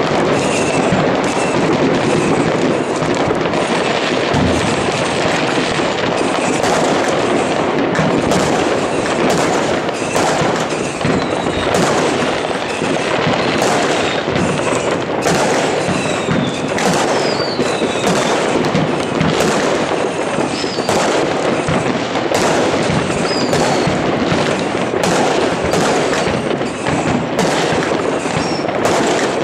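Fireworks going off all over a town: a dense, continuous crackle of many overlapping bangs and firecrackers, with short falling whistles from rockets now and then.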